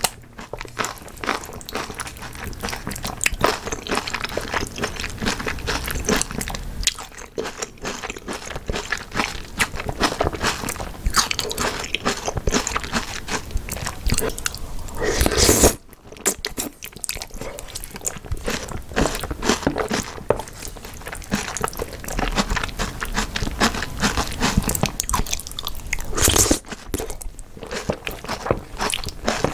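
Close-miked eating of jajangmyeon (black bean noodles): continuous wet chewing and biting, with two louder, brief slurps of noodles about halfway through and near the end.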